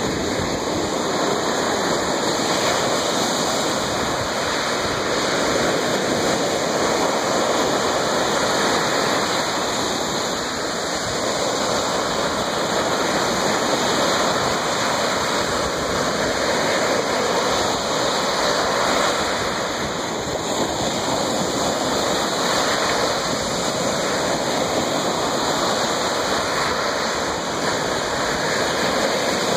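Lake Superior water washing on the shore, a steady rush of water with slight slow swells in level.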